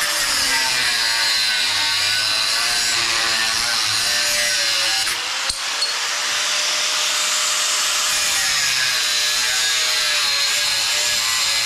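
Angle grinder grinding a metal plate clamped in a vise, running continuously with its motor pitch rising and falling as the disc bites and eases off. There is a brief break with a click about halfway through.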